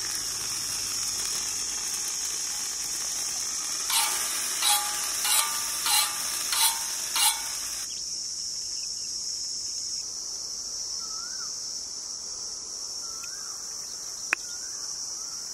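Insects chirring steadily at a high pitch. Midway comes a run of six loud, evenly spaced pitched notes, about one and a half per second; later there are faint whistled bird calls and a single sharp click near the end.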